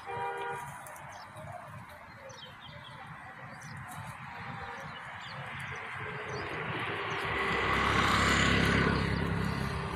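A goat gives a short bleat at the start, with faint bird chirps after it. A low rushing noise swells from about seven seconds in, is loudest just before the end, then eases.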